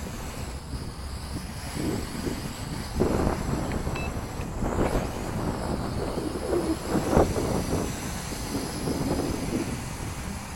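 Wind buffeting the microphone in irregular gusts, a rumbling noise that swells and fades every second or two.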